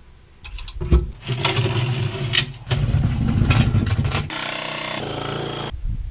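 Cordless DeWalt drill-driver running in several bursts of changing speed as screws are driven into a plywood cabinet, with a steadier, higher whir in between.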